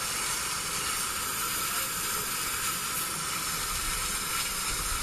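Steam hissing steadily from Bulleid West Country class Pacific steam locomotive No. 34007 Wadebridge as it stands in the station.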